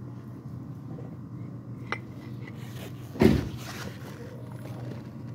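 Handling of a new Toyota 2AZ-FE balancer shaft assembly, its gears turned by hand to set the timing marks: a small click about two seconds in, then one heavier thump a second later, over a steady low hum.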